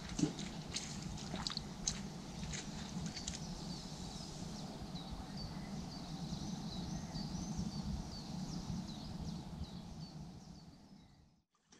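Songbirds chirping and singing over a steady low outdoor hum, with a few sharp clicks in the first few seconds; the sound fades out just before the end.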